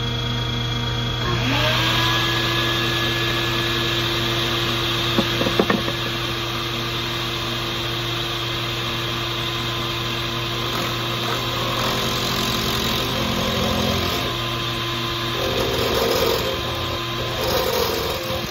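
Electric power-tool motor in a pen-making shop spinning up about a second in and then running steadily over a constant background hum, with a few sharp clicks around five to six seconds and the sound of the work varying near the end.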